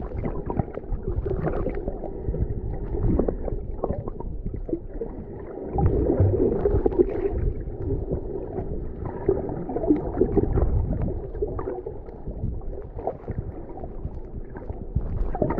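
Underwater sound picked up by a camera held below the surface: a muffled, low rumbling wash of moving water with gurgling and many small knocks.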